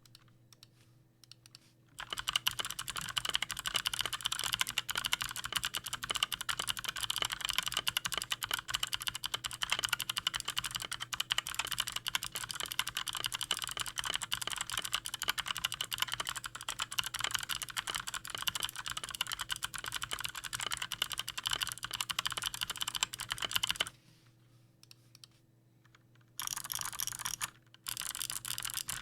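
Fast typing on a custom 60% mechanical keyboard with lubed Kailh Speed Bronze clicky switches, pudding keycaps, an aluminium plate and a transparent plastic case: a dense, unbroken stream of key clicks starting about two seconds in. It stops near the end, followed by two short bursts of typing.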